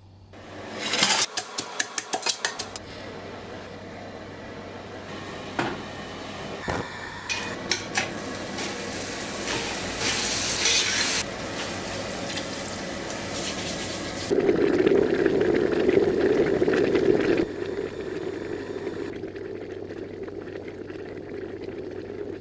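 Kitchen work while fish stock is made: a quick run of clattering clicks about a second in, then pots and utensils knocking, with stretches of rushing water or liquid noise.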